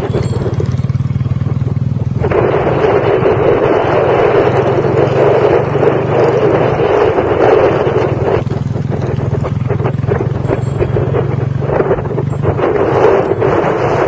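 Motorcycle engine running steadily under way, with wind rushing over the microphone. The wind noise comes in about two seconds in, eases off around the middle and returns near the end.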